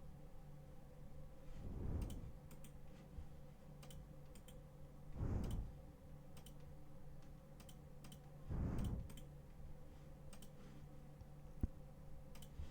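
Faint scattered clicks of a computer mouse and keyboard over a steady low electrical hum, with three soft low rushes of noise a few seconds apart.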